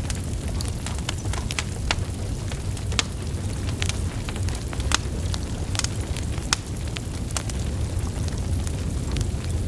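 Burning wood logs in a fire: a steady low rumble of flames with irregular sharp crackles and pops, about one or two a second.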